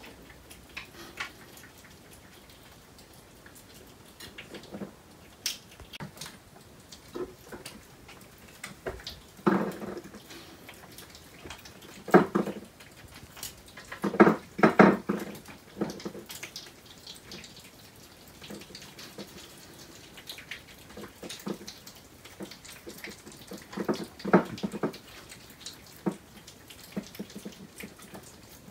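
Pine martens feeding from plates of nuts: many small irregular clicks and crunches from chewing, and from claws on the sill and plates. Several clusters of louder knocks and clatters come through the middle and again near the end.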